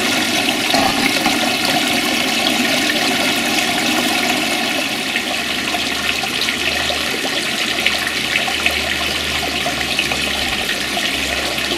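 Steady splashing and trickling of water falling from a rock water feature into a garden koi pond, with a low hum joining about five seconds in.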